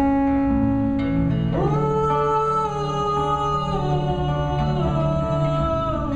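Acoustic guitar strummed while a man sings long wordless held notes over it, the melody stepping down in pitch a couple of times before fading near the end.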